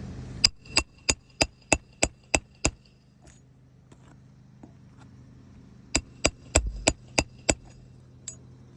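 Hammer blows on a roof snake, driving nails up under asphalt shingles: eight quick metallic strikes, about three a second, then a pause and six more, with a single lighter tap near the end.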